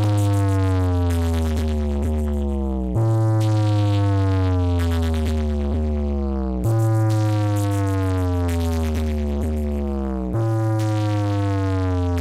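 DJ sound-check music through an SK Sound DJ sound system: a heavy sustained bass note under a synth tone that glides downward. The pattern restarts about every three and a half seconds.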